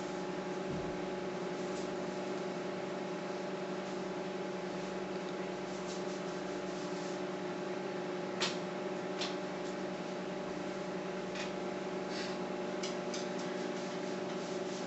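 Microwave oven running with a steady hum, marked by a few short clicks, the sharpest about eight seconds in.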